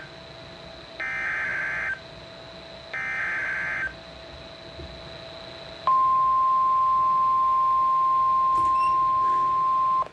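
NOAA Weather Radio emergency alert through a Midland WR120 weather radio's speaker: two harsh, buzzy SAME digital header bursts, about a second each and a second apart, then about six seconds in the steady, shrill 1050 Hz warning alarm tone, which marks an incoming warning, here a severe thunderstorm warning.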